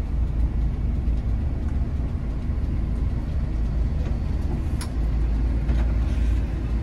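Steady low rumble of an intercity bus's engine and running gear, heard from inside the cabin as it moves slowly. A single sharp click sounds about five seconds in.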